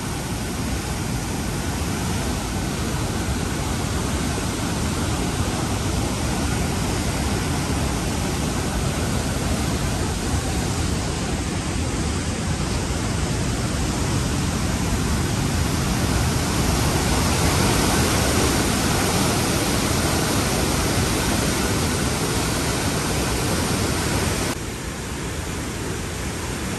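Chenab River floodwater pouring through the open sluice gates of a barrage and churning below it: a loud, steady rush of water that eases a little near the end.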